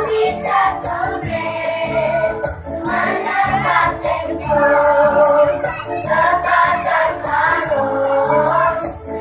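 A group of children singing a song together to music with a steady beat.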